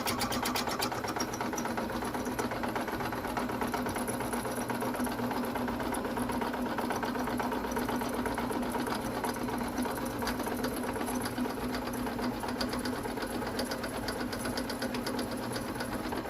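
A small motorised machine running steadily, with a constant hum under a fast, even clatter.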